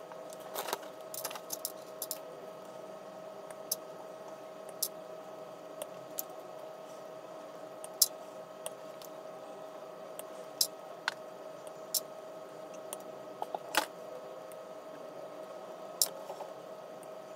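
Hobby side cutters snipping plastic model-kit parts off their sprues: about twenty sharp clicks at irregular intervals, some in quick pairs and clusters, over a steady faint hum.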